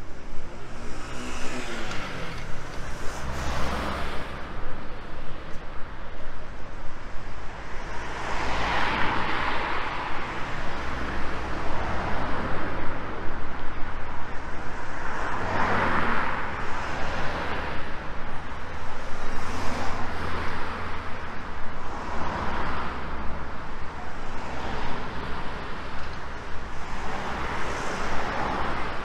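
City street traffic: cars passing one after another on the road alongside, about five passes that each swell up and fade away, over a steady low rumble.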